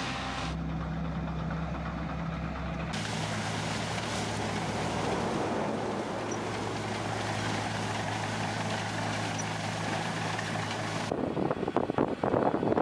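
Farm machinery running: the steady engine of a tractor-drawn harvester, then a sugar cane harvester's engine and cutting noise. Near the end comes a fast, irregular mechanical clatter from a close-up planting mechanism.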